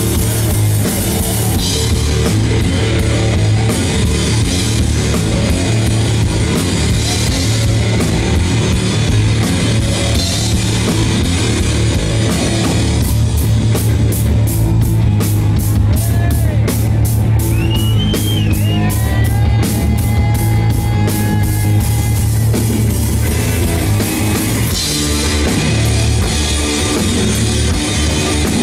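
Live rock played by a duo on distorted electric guitar and drum kit, loud and steady. Around the middle the texture thins to rapid, evenly spaced drum strokes with high, bending guitar notes over them, before the full band comes back in near the end.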